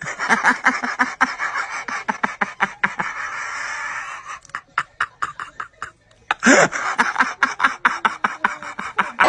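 Hearty laughter in two long bouts of quick repeated 'ha-ha' pulses, each starting with a loud outburst, with a short lull between them.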